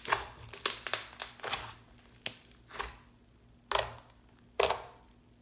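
Clear glue-and-borax slime being pressed and kneaded by hand, making short crackly squishes: a quick run of them at first, then single squishes about once a second.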